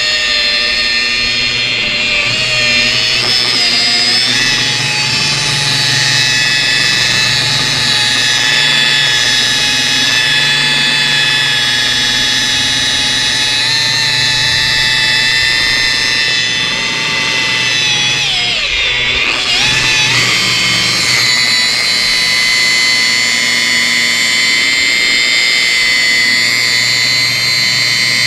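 DeWalt rotary polisher with a black foam waffle pad running on car paint: a steady electric motor and gear whine. Its pitch sags and recovers briefly about two-thirds of the way through.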